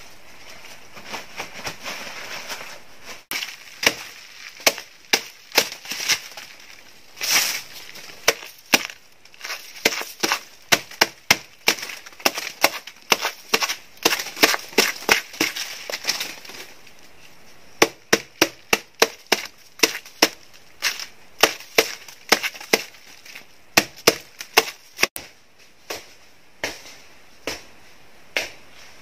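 Machete hacking into the soft, fibrous trunk of a banana plant: a long run of sharp chops, about two a second, with a short break around the middle.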